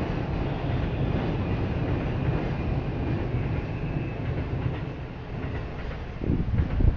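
Steady low rumble of a passing train, fading over the last few seconds, with a few short low thumps near the end.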